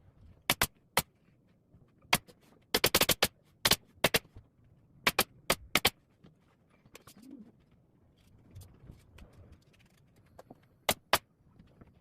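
Upholstery staple gun firing about fifteen sharp shots, some single and some in quick runs, the fastest run about three seconds in, as new leather is stapled onto a gym bench pad.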